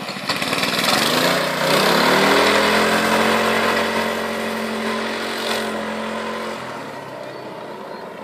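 Small engine of a motorized drift trike revving up as it pulls away, its pitch rising over the first couple of seconds and then holding steady. It fades as the trike drives off down the track.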